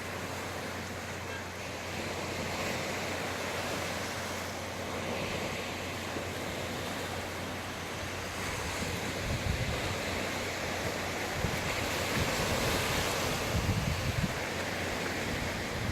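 Sea waves washing on the shore with a steady surf hiss, and wind buffeting the microphone in low gusts during the second half.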